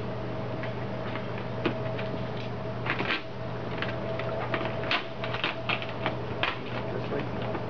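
Vinyl tint film being handled and pressed around a car taillight, giving irregular small clicks and crackles that cluster about three seconds in and again a little past the middle, over a steady low hum.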